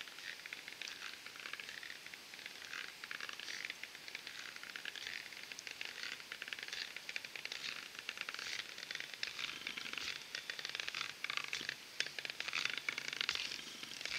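Strap-on stilts crunching through a couple of inches of crisp snow, a dense run of crackling steps that grows louder near the end as the walker comes closer.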